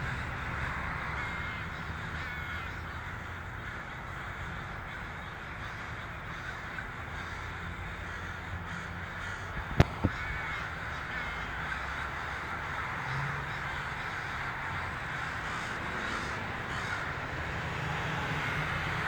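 A huge flock of crows cawing all at once, a dense, continuous chorus of many overlapping calls. Two sharp clicks stand out about halfway through.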